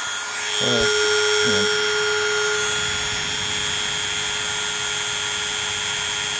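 Low-powered rotary tool with a diamond cutting disc running with a steady whine, grinding into the edge of a wetted pane of toughened glass. The sound grows louder about half a second in and then holds steady.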